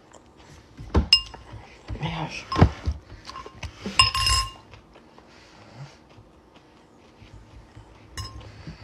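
Metal fork clinking against a glass bowl while scooping salad: several short ringing clinks, the loudest about four seconds in and another near the end.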